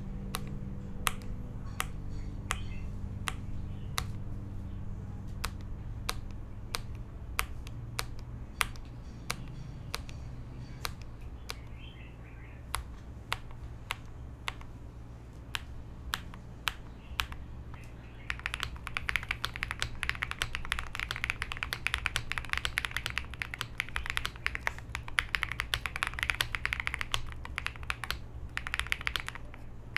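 AM Neon 80 mechanical keyboard with Gateron Icy switches, FR4 plate, leaf-spring mount, full foam and KKB keycaps being typed on. It starts with separate single keystrokes, about two a second, then a little past halfway turns into fast continuous two-handed typing.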